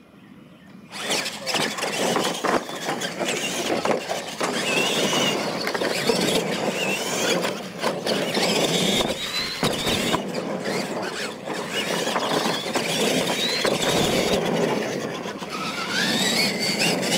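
Radio-controlled Clod Buster-style monster trucks racing on dirt: their electric motors and gearboxes whine high, rising and falling with the throttle, over the rough sound of big tires churning dirt. The noise starts suddenly about a second in.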